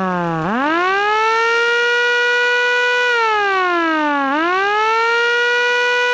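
Electronic siren wired into a car and switched on through the ignition, sounding a loud wail. Its pitch rises, holds steady for about two seconds, falls, then rises and holds again.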